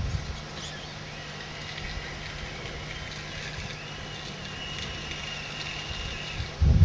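Small electric drive motors and gearboxes of a radio-controlled 1/16 scale skid steer loader whining, the high whine starting, stopping and shifting in pitch as the model moves. A loud low rumble on the microphone comes near the end.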